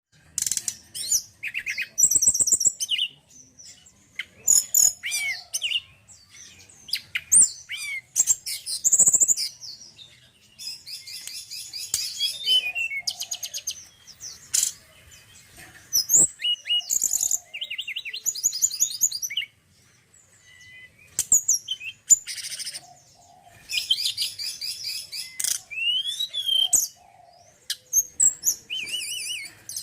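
A male tledekan gunung singing a lively, varied song of high chirps, fast trills and rising and falling whistled phrases, broken by short pauses.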